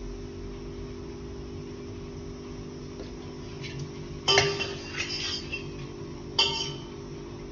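Kitchen utensils clinking twice, about four seconds in and again a couple of seconds later, each with a short metallic ring, over a steady low hum.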